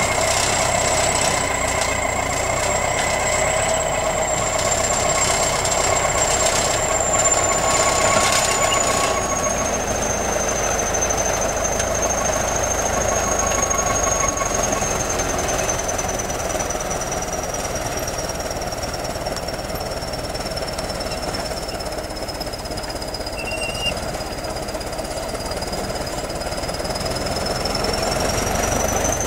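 A 17- to 18-tonne crawler bulldozer running under load as it pushes soil along an earth dam, its engine working steadily. A thin high whine runs through it, slowly wavering in pitch.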